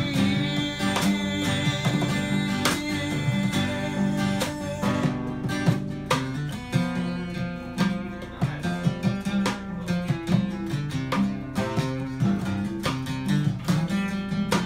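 Live acoustic jam: guitars picking quick runs of notes over strummed chords in a steady tune.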